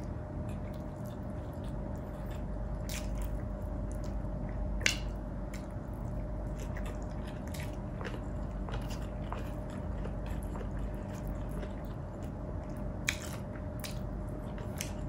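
A person chewing and biting food close to the microphone, with a few short sharp clicks, the loudest about five seconds in and again about thirteen seconds in, over a steady low hum.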